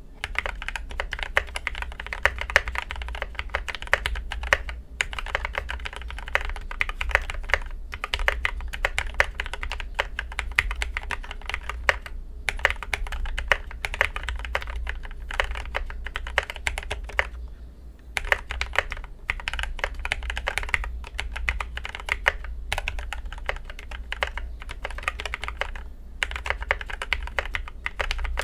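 Typing on an Idobao ID80 mechanical keyboard with linear Gateron Yellow KS3 switches, lubed with a Krytox 205g0 and 105 mix and filmed, under Akko Neon keycaps. It is a continuous run of keystrokes with a few short pauses.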